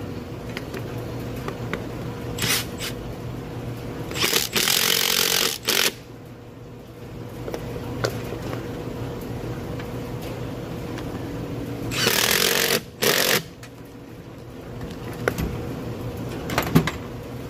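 A 3/8-inch air impact wrench running in short bursts as it spins bolts in and out of a seed-drill press wheel: a brief burst, a longer one of about a second and a half, and two more near the end, over a steady low hum.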